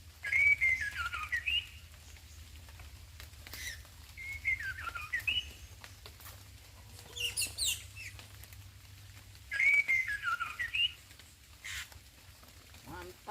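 White-rumped shama singing: three similar whistled phrases, each a run of notes sliding downward and ending on a rising flourish, with short high chirps between them.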